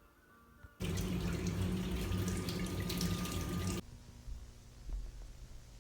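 Running water, like a tap, gushing steadily for about three seconds; it starts about a second in and cuts off abruptly.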